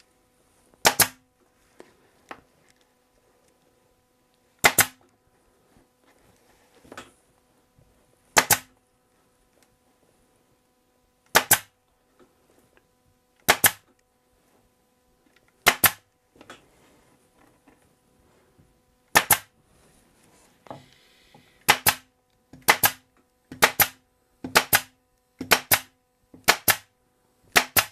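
Pneumatic upholstery stapler firing staples through fabric into a wooden chair rail, about fourteen sharp shots: a few seconds apart at first, then roughly one a second over the last six seconds.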